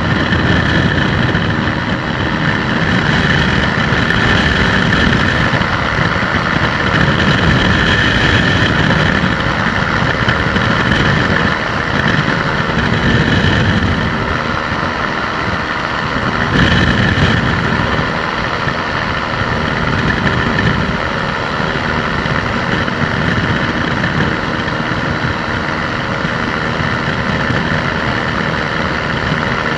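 Weight-shift microlight trike in flight: its engine and propeller running with a steady drone, mixed with wind rushing and buffeting over the microphone.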